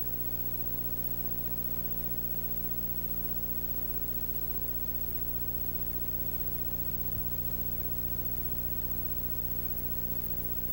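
Steady electrical hum with a faint hiss under it, unchanging throughout: mains hum and tape noise on a stretch of tape with no programme sound.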